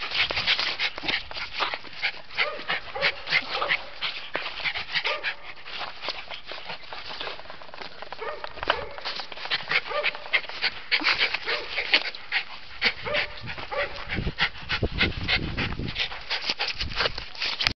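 West Highland white terrier puppies making small whimpers and yips over a constant crackling rustle. Low rumbling comes in near the end, when an adult westie's face is right at the microphone.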